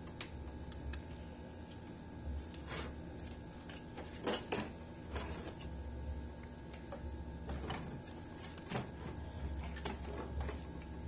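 Scattered plastic clicks and knocks as a CRT TV's circuit boards and black plastic chassis frame are handled and fitted back into place, the loudest cluster about four and a half seconds in, over a steady low hum.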